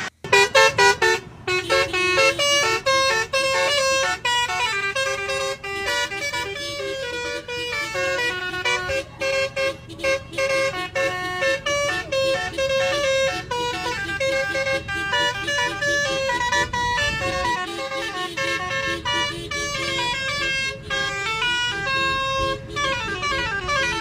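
Lorry's multi-tone 'telolet basuri' musical air horn playing a tune, a quick string of short notes stepping up and down in pitch. Near the end a few notes slide in pitch.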